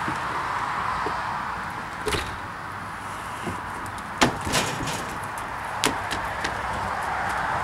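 A glass storm door swings open and shuts, followed by a few sharp knocks and taps as someone steps out onto a wooden deck in flip-flops, over a steady outdoor hiss.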